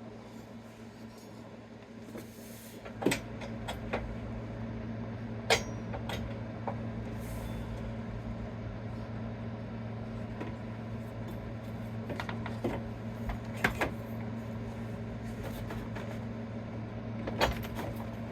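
A handful of sharp clicks and knocks, spread out, from hands and tools fitting a motorcycle crash bar onto the footpeg bolt, over a steady low hum.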